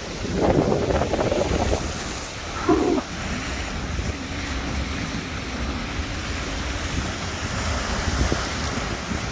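Lake Michigan waves washing and breaking against a shoreline wall, a steady surf rush with louder surges in the first few seconds, while wind buffets the microphone.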